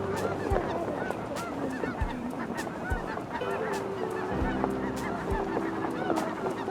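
Large flock of geese calling, many short honks overlapping in a constant clamor.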